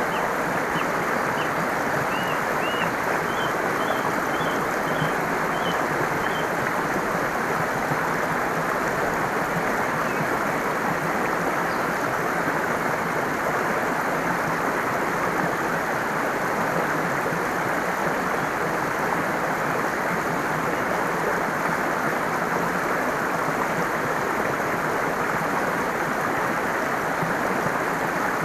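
Stream water running steadily. Over it, a bird gives a series of short, high chirps through the first six seconds or so.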